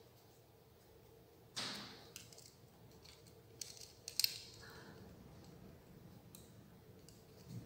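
Faint handling sounds of thin hookup wire being worked by hand on a wooden wiring board: a soft scrape about a second and a half in, then a few light clicks, the sharpest just after four seconds.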